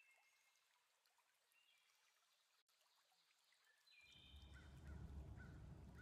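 Near silence with a few faint short high chirps; about four seconds in, a low rumbling noise comes in.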